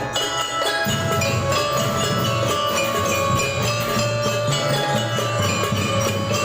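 A school marching band playing: bright bell-like mallet notes carry the tune over a steady drum rhythm, and the low drums grow heavier about a second in.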